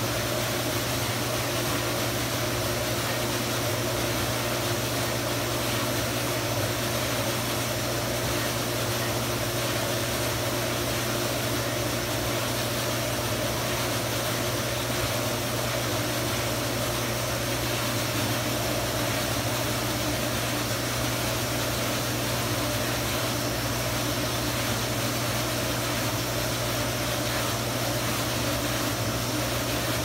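Meiko CS70 Kube low-temp commercial dishwasher running with its hood closed: a steady hum from the pump motor over an even hiss.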